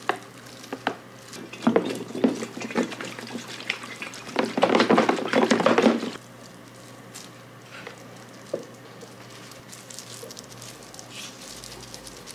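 Alcohol being poured and sloshed in a container as freshly printed resin models are washed of uncured resin. There are scattered knocks and clinks, and the loudest splashing lasts about two seconds near the middle.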